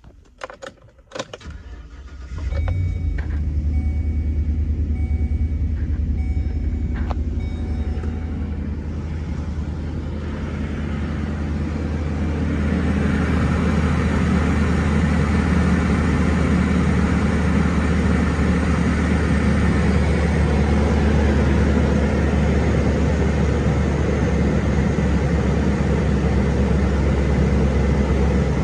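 2012 Chevrolet Express van: a few clicks, then the engine starts about two seconds in and settles into a steady idle that grows louder and fuller from about twelve seconds in.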